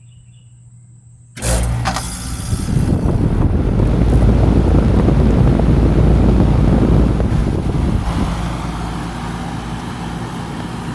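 Lennox package heat pump starting up in cool mode: it kicks on suddenly about a second in with a steady low hum and rushing air, building over several seconds and then easing slightly as it settles into running.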